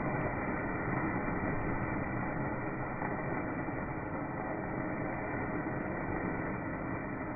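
Thermite of iron(III) oxide and aluminium powder burning in a steel pan: a steady rushing noise with scattered small crackles of sparks.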